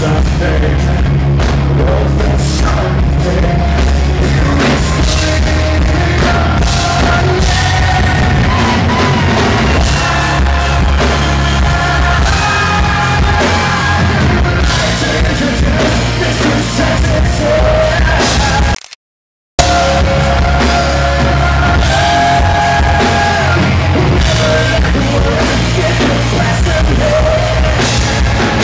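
Live rock band playing loudly, with a male lead singer belting and shouting lines into the microphone over electric guitar. The sound cuts out completely for under a second about two-thirds of the way through, then the music resumes.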